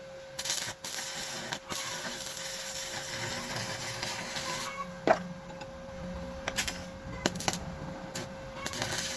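Electric arc welding crackling and hissing in bursts on steel bar: a long run of several seconds, a pause with brief spurts, then the arc striking up again near the end. A sharp click about five seconds in, over a faint steady hum.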